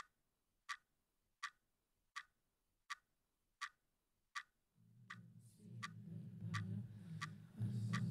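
Pendulum wall clock ticking steadily, about three ticks every two seconds. From about five seconds in, a low droning rumble rises under the ticks and becomes the louder sound.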